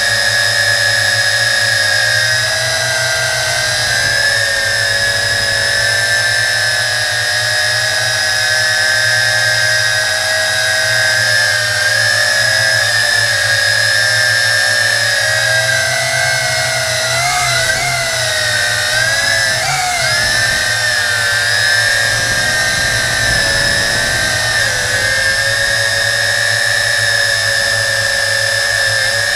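JJRC Tarantula drone's motors and propellers whining steadily in flight, recorded by the camera riding on it. The pitch wavers up and down a few times past the middle as the throttle changes.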